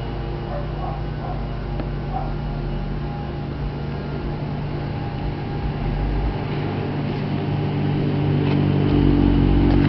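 Car engine running with a steady hum, growing louder in the last few seconds.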